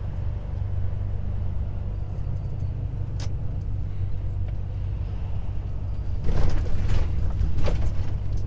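Volvo FH truck heard from inside the cab while driving: a steady low engine drone with road noise, growing louder and rougher for the last couple of seconds.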